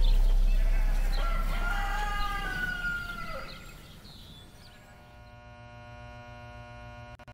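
A rooster crows once: one long call that rises, holds and then falls away, while low background music fades out. From about five seconds in, a steady electric hum sets in.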